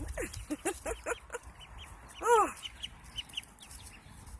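A brood of young chicks and ducklings peeping: many short, high peeps throughout, with a quick run of lower, falling calls in the first second and a half.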